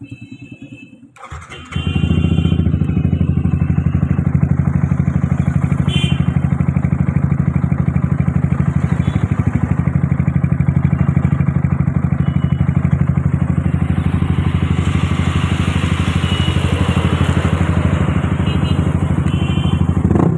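Yamaha R15 V3's 155 cc single-cylinder engine starting about a second and a half in, then idling steadily with an even pulse.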